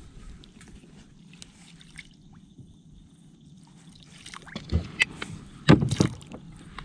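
Water sloshing and splashing as a landing net holding a channel catfish is dipped into the water to release the fish. It is quiet for the first few seconds, then several sharp splashes come close together near the end.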